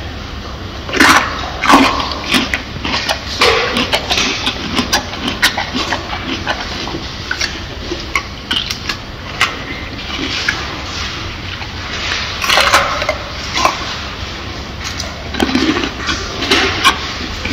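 Silverback gorilla chewing food close up: irregular wet crunching and smacking, with louder bites about a second in, around two seconds in, and again around twelve seconds in, over a steady low hum.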